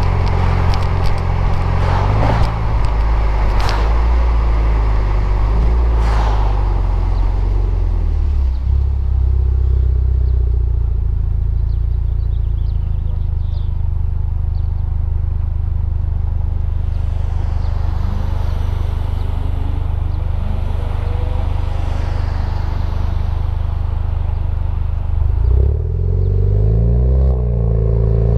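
Alfa Romeo Stelvio with a Super Sprint full exhaust and race muffler, driving: a steady, deep exhaust drone at an even speed, with the revs rising and falling several times near the end as it accelerates.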